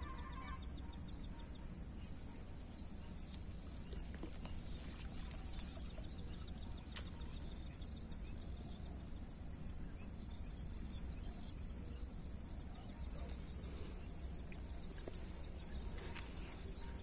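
Steady high-pitched drone of insects, unchanging throughout, over a low rumble.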